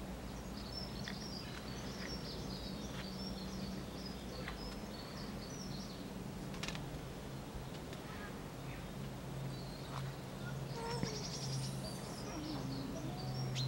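Small songbirds chirping with short high notes throughout, breaking into a quick trill about eleven seconds in, over a steady low hum that drops in pitch partway through.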